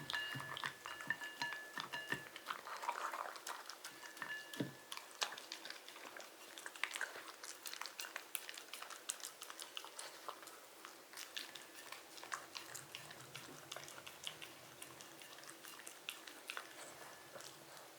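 Shiba Inu chewing and biting on something, a steady run of small crisp clicks and crackles.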